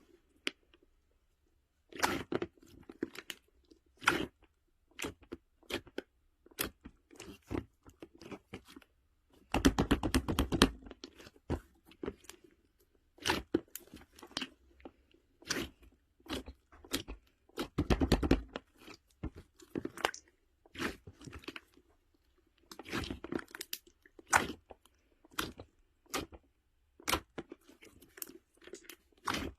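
Close-up chewing and crunching of something brittle and hard, sharp crackling bites at irregular intervals, with denser stretches of crunching about ten seconds in and again near eighteen seconds.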